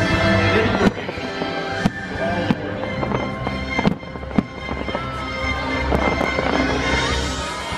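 Fireworks bursting with several sharp bangs over loud show music playing.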